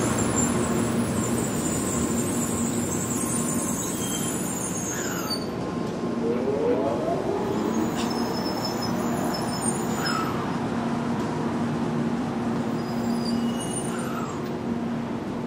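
N700-series Shinkansen train moving at the platform: a steady rumble and hiss with a low hum, and short rising motor whines about six seconds in. The noise slowly fades as the train draws away.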